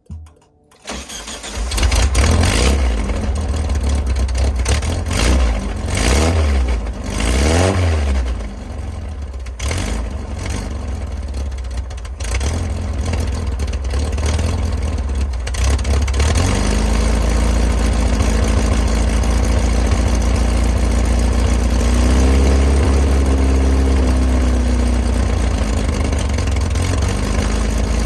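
Car engine started up and revved several times, then settling into steady running with one brief rev partway through. This is likely the engine's first run after a transmission replacement.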